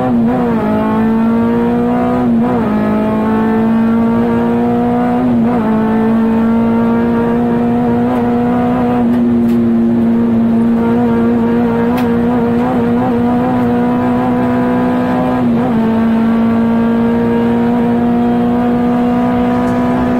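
K24 four-cylinder engine of a Honda Integra DC2 Type R heard from inside the cabin, running at high, fairly steady revs that climb slowly, with brief dips about two and a half, five and a half and fifteen and a half seconds in.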